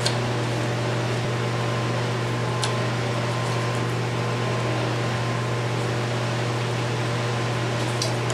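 Steady low mechanical hum with an even hiss over it, from a machine running in the background, and a couple of faint clicks from a Phillips screwdriver backing out screws on the belt sander's shroud.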